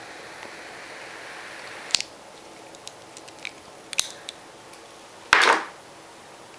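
A few sharp clicks and small taps, then a short rustling burst a little past five seconds in, over a steady faint hiss.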